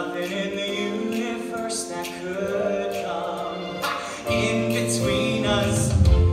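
Live stage-musical number: voices singing long held notes over instrumental accompaniment, with a heavy bass line coming in about four seconds in and the music growing louder.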